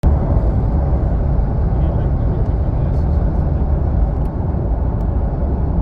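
Vehicle driving: a steady low rumble of road and wind noise.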